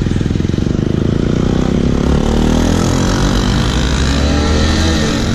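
Motorcycle engine accelerating as the bike pulls away and gains speed, rising in pitch with a break about halfway through, over steady road and wind noise.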